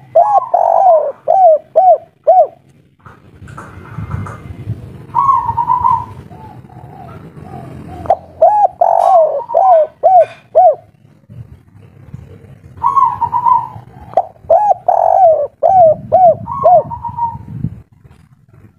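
Spotted dove cooing, the three-part 'kuk 3' song that Indonesian keepers prize. It sings about four phrases, each a run of short rising-and-falling coo notes, with pauses between them.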